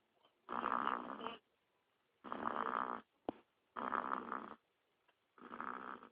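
A baby only a few months old snoring: four snores, one about every second and a half, each under a second long.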